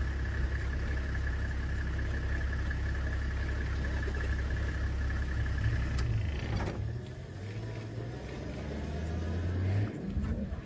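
Safari vehicle's engine running with a steady low drone; its note shifts about two-thirds of the way in.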